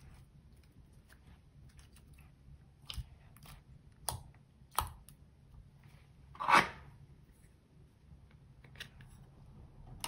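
Clear slime being handled over crushed eyeshadow, giving several small clicks and crackles, with one louder, longer pop a little past the middle.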